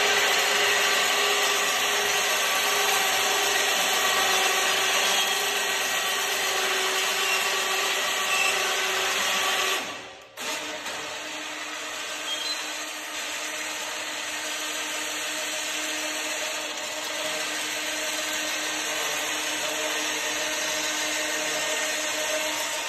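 Electric winch running steadily under load as it raises a spiked sawmill log-turner arm, stopping briefly about ten seconds in. It then runs again more quietly as the turner is let back down below the deck.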